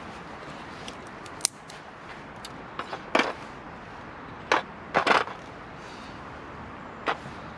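A disposable aluminium foil tray being handled: a sharp click about one and a half seconds in, then a few short crinkles and scrapes of the foil, the loudest around five seconds in, over a steady hiss.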